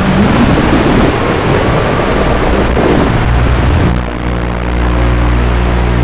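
FPV quadcopter's motors and propellers buzzing in flight, their pitch rising and falling as the throttle changes, over a steady rushing noise; the pitch holds steadier in the second half.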